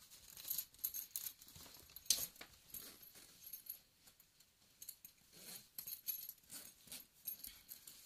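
A fabric messenger bag being handled and moved: irregular rustling with scattered light clicks and jingles from its zipper pulls and hardware, the sharpest click about two seconds in.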